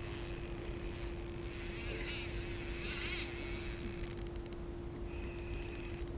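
Spinning reel being wound slowly while playing a hooked mullet, a soft whirr of the reel's gears, with a few quick clicks in the second half. A steady low hum runs underneath.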